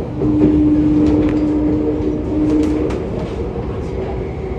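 MTR SP1900 electric train running, with a steady rumble and a few clicks of the wheels over rail joints. A steady tone sounds for about the first three seconds, then fades.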